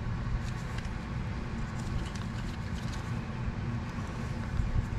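A few faint clicks and light taps as a greased rear brake pad is handled and seated into the caliper bracket, over a steady low rumble.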